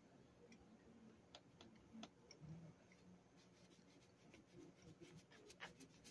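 Near silence: room tone with a faint low hum and scattered faint clicks and ticks at uneven intervals.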